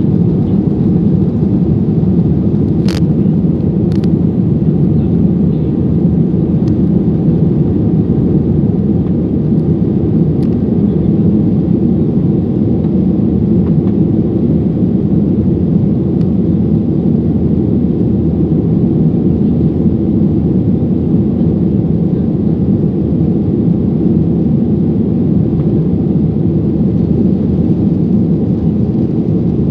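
Steady, loud cabin roar of a Ryanair Boeing 737-800 climbing out after takeoff: CFM56 engine noise and airflow heard from a window seat over the wing. Two short clicks come about three and four seconds in.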